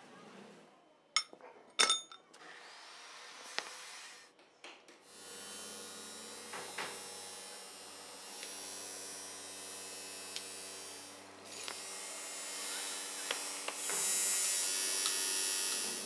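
Steel parts of a large roller bearing clinking twice as they are handled. Then a steady machine hum with rubbing and scraping of steel, turning into the louder hiss of a bench grinder's wheel against steel near the end.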